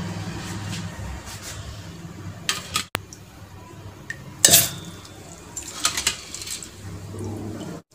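Stainless-steel utensils and a mixer-grinder jar clinking and scraping as soaked rice is tipped and scooped into the jar. There are a few short, sharp metallic clinks, the loudest about halfway through.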